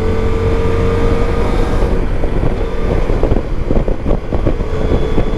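Motorcycle engine running at a steady note while riding in traffic, with wind rumbling on the helmet-mounted microphone.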